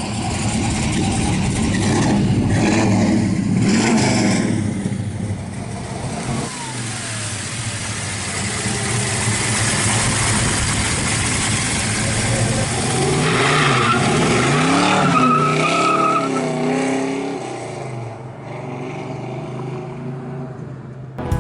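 454 big-block V8 in a 1967 Chevy Chevelle SS running and being revved, its pitch rising and falling several times about two-thirds of the way through.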